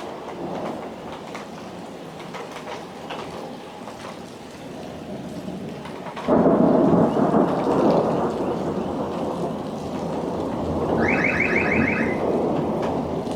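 Rain falling steadily, then about six seconds in a loud clap of thunder from a close lightning strike breaks in suddenly and rumbles on. Near the end a short run of rapid high-pitched beeps sounds over the rumble.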